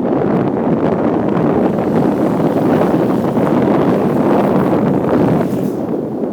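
Steady wind buffeting the microphone over a running trail motorcycle, easing briefly near the end.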